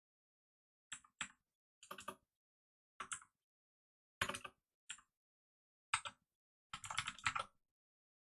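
Computer keyboard typing in short bursts of keystrokes with pauses between them, ending in a longer flurry of keys.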